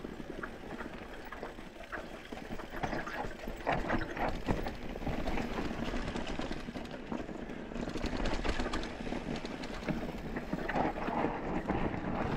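Mountain bike rolling over a rocky trail: tyres crunching on loose stones, with frequent clicks and rattling knocks from the bike as it goes over the rocks.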